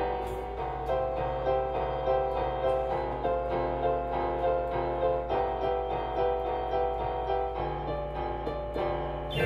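Background piano music, with notes struck one after another at an even pace.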